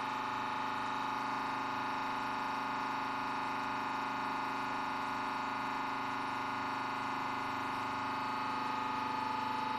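Hydraulic press's pump running with a steady whining hum while the press is under load, pressing down on a plastic Coca-Cola bottle.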